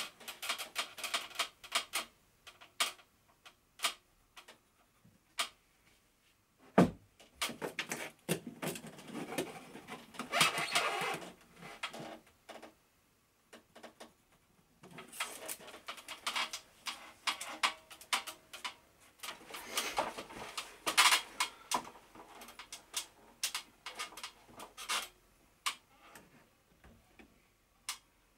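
Handling noises from fitting a wooden board against a wall: scattered clicks and knocks with short stretches of scraping, and one heavier thump about seven seconds in.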